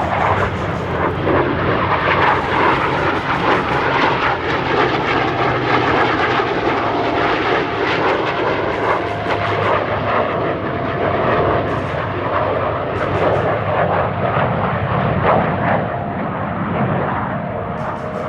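Military aircraft flying past: continuous loud engine noise that wavers in strength and eases slightly near the end.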